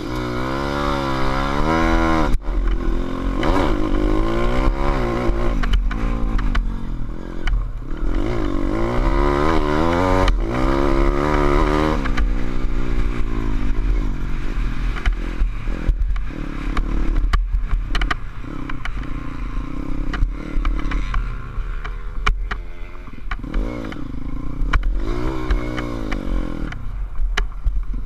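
SSR 150 pit bike's single-cylinder four-stroke engine, heard from a helmet camera, revving up and dropping back again and again as it is ridden on a dirt track, with clattering over the top.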